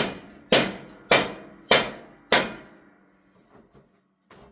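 Five ringing metal-on-metal blows about half a second apart, each ringing briefly before it dies away, then a stop near the three-second mark: hammering on a rusted-on riding-mower wheel rim to drive it off its axle.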